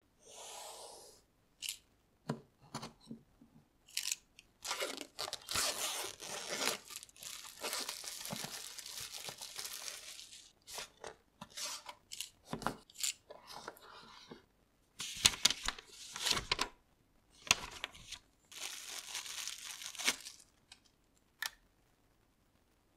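Close-up packaging sounds as a small cardboard box is opened: a snap-off utility knife cutting and scraping through the box's seal, packaging tearing and crinkling in long stretches, and many sharp taps and clicks as the box and its contents are handled.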